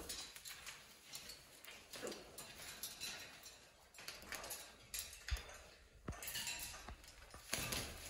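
Irregular scratching and tapping with a few sharp knocks: a raccoon's claws gripping and scraping on wooden branch perches and the metal wire top of a cage as it climbs.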